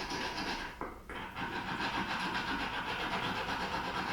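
Metal hand file rasping across a germanium silver ring in quick, even strokes, starting again after a brief pause about a second in.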